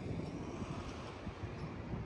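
Wind buffeting the microphone, an uneven gusty rumble over a steady background hiss.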